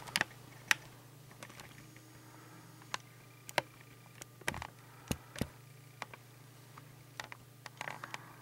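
Faint handling noise: scattered light clicks and taps at uneven intervals, over a low steady hum.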